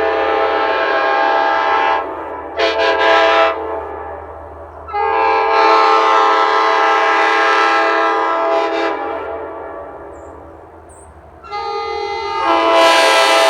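A 1978 big-tag Nathan Airchime K5LA five-chime train horn with a Big Bore 5 bell, sounding its chord in separate blasts, each tailing off slowly. A long blast ends about two seconds in, a short blast follows, then a long blast from about five to nine seconds, and a new blast near the end swells up to full strength.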